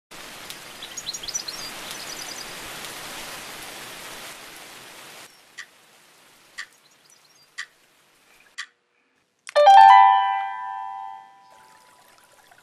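Soundtrack effects: a steady hiss of ambience with a few high bird chirps that cuts off after about five seconds, then four sharp ticks about a second apart, then a single bright chime, the loudest sound, ringing out and fading over about two seconds.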